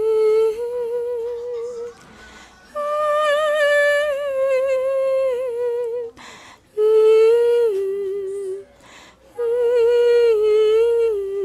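A woman humming a slow melody with her mouth closed, in four long held phrases with short breaths between them.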